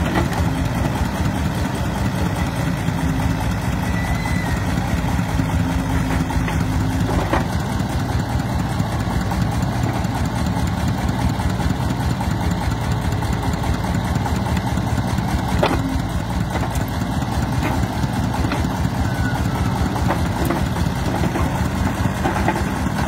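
Diesel engines of a mini excavator and a three-wheeled công nông truck running steadily as the excavator works its grab bucket. Two sharp knocks come through, about seven seconds in and again near sixteen seconds.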